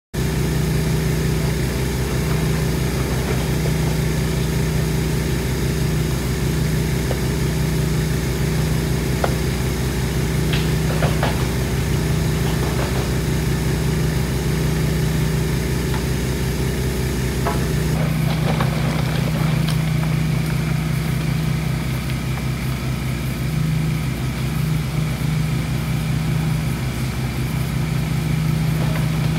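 Diesel engine of a Kubota mini excavator running steadily, with a few sharp knocks near the middle, and its note changing about two-thirds of the way in.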